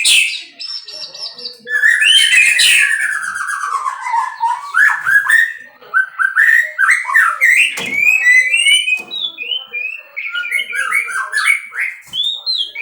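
White-rumped shama (murai batu) singing a loud, varied run of whistled phrases: quick rising and falling notes and chirps, with a long falling whistle about two seconds in.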